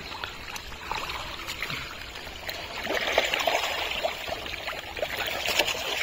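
Shallow muddy water sloshing and trickling as hands grope through pond mud, with many small wet splashes and slaps, busier from about halfway through.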